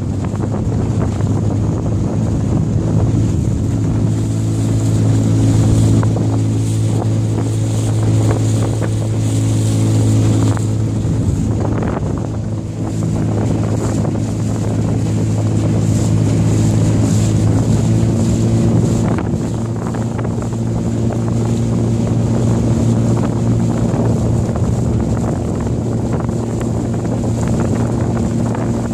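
Small boat's motor running steadily under way, a constant low hum.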